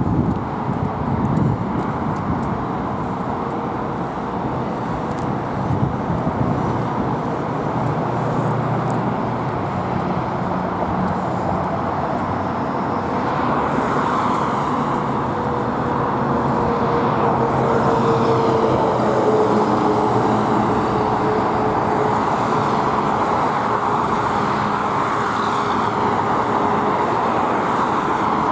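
Steady road traffic noise, with a vehicle passing and a slowly falling tone around the middle.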